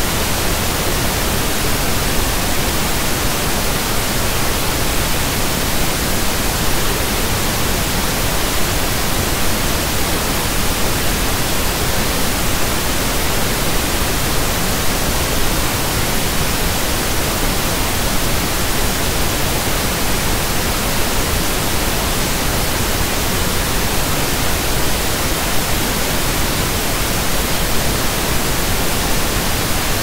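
Steady pink noise: an even, unchanging hiss spread across all pitches.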